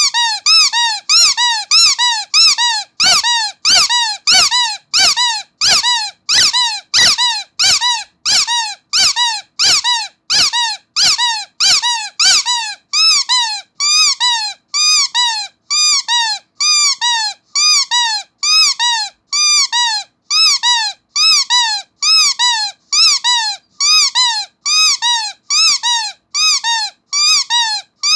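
Rubber starfish squeaky toy squeezed over and over, about two short pitched squeaks a second in a steady rhythm.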